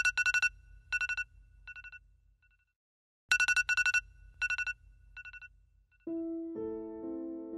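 Mobile phone ringtone: two rings about three seconds apart, each a few bursts of rapid trilling beeps that fade, with a low buzz under each. Piano music starts about six seconds in.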